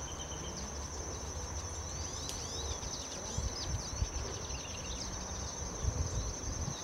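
A steady high-pitched insect trill, with small birds chirping in short bursts a little after two seconds in and again near the end, over a low wind rumble.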